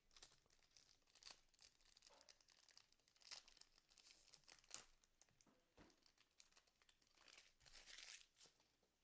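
Faint crinkling and tearing of a foil trading-card pack wrapper being ripped open and handled, a run of short crackles.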